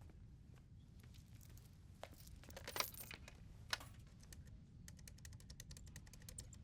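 Payphone Foley: coins clinking and dropping into a payphone, with scattered sharp metallic clicks, then a quick run of small, evenly spaced clicks near the end, over a faint low hum.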